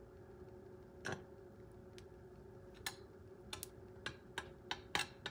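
Faint, irregular light ticks and taps from a hot nonstick frying pan as a piece of ghee is pushed around it to melt, coming more often in the second half, over a faint steady hum.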